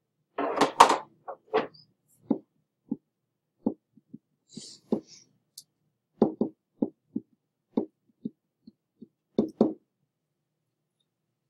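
A pen tapping and knocking on a writing surface while equations are handwritten: a string of short, irregular knocks, with a louder rustle about a second in.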